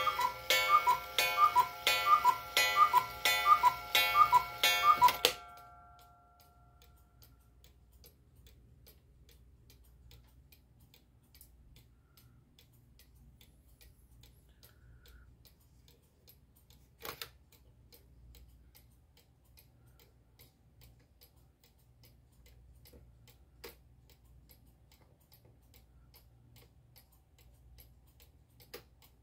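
Hubert Herr mini cuckoo clock sounding the hour: the bellows-pipe cuckoo call repeats rapidly in two-note calls and stops about five seconds in. After that the clock's movement ticks faintly and steadily, with three single louder clicks later on.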